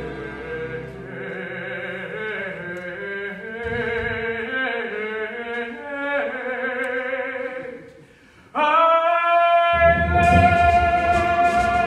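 A male lead singing a musical-theatre number with vibrato over a live pit orchestra. After a brief dip about eight seconds in, a long held final note comes in loud as the full orchestra swells under it.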